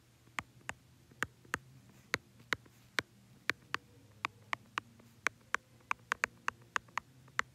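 Stylus tip clicking against a tablet screen during handwriting: sharp, irregular clicks, about three a second, over a faint steady low hum.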